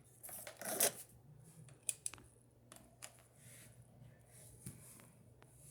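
Quiet handling noise: a few light clicks and rustles, over a faint low hum. The vacuum's motor is not running.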